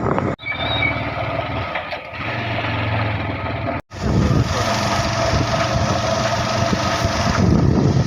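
Motor vehicle engine running on the move, with a steady low hum and wind noise. It cuts out abruptly twice, briefly.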